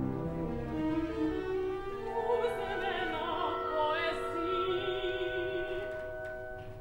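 Opera with orchestra: sustained orchestral chords with strings, and a solo singing voice with vibrato coming in about two seconds in.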